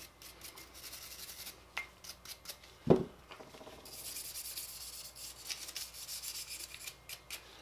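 Small wire brush scrubbing the steel parts of an AR-15 bolt carrier group wet with carbon solvent, in quick scratchy strokes. There is one sharp knock about three seconds in, as a part or tool meets the bench.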